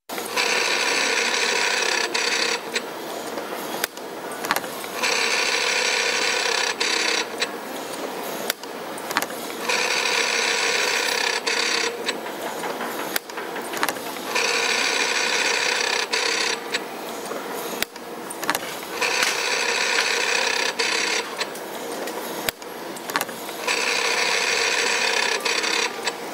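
Simco CNC-620R spring forming machine making torsion springs in a repeating cycle, six times over: a high whir lasting about two seconds, then a quieter stretch with sharp clicks and knocks of the forming tools.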